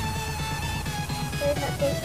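Background music: an electronic track with a steady, pulsing beat and a melody over it.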